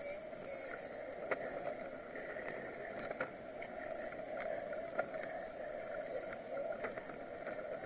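Bicycle riding on a paved road, picked up by a camera on the bike: a steady hum with light clicks and rattles scattered irregularly through it.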